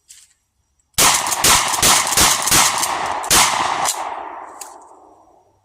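A rapid string of about nine shotgun shots fired in quick succession over some three seconds, followed by echo dying away over about a second and a half.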